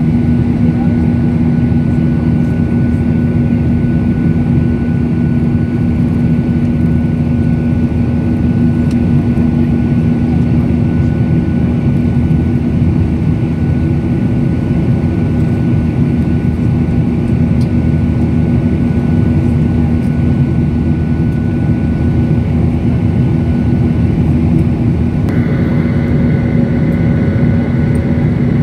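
Boeing 737-900ER cabin noise heard from a window seat over the wing: the CFM56-7B turbofans at climb power give a steady, loud drone with a low hum and a faint higher tone. About 25 seconds in, a second, higher whine joins and holds.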